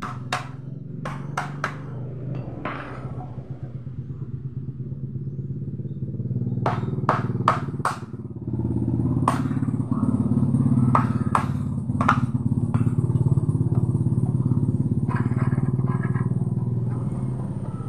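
Wood chisel being struck to chop a mortise in old hardwood: sharp knocks in irregular clusters, with a quick run of blows about seven seconds in. Under them a steady low engine drone runs throughout and gets louder about halfway through.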